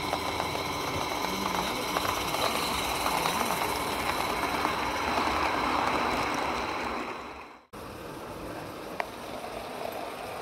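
A pair of small 16mm-scale live-steam locomotives with their coaches running past: steam hissing and wheels rattling on the track, swelling and then fading as the train goes by. It cuts off suddenly, leaving a quieter outdoor hiss with one sharp click a little later.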